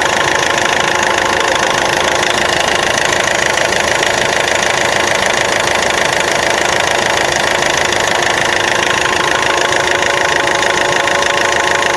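Clark S30D forklift's Isuzu diesel engine idling steadily.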